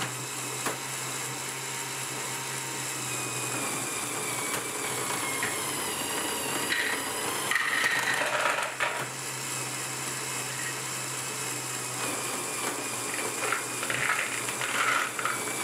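LEGO container transporter machine running on one XL motor through a gearbox of LEGO gears and clutches: a steady motor whine with whirring plastic gears. Louder plastic clattering comes about halfway through and again near the end.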